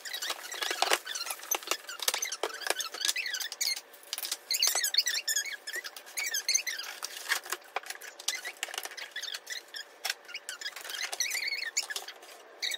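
Clear plastic wrapping crinkling and rustling as food processor parts are pulled out of their bags, in irregular bursts with a few sharp clicks.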